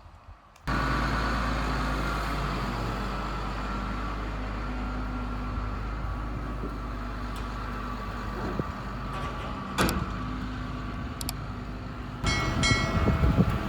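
Heavy equipment engine running steadily, with a single sharp knock about ten seconds in. Near the end it gets louder, with a high metallic tone.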